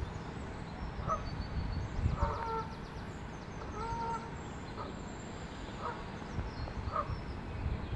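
Waterfowl giving about six short honking calls, spread out with pauses between them, over a steady low rumble of wind on the microphone. Small birds chirp faintly.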